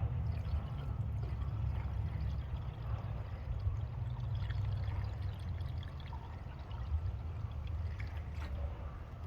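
Liquid being poured into the car's cooling system to fill it for a leak test, over a steady low rumble.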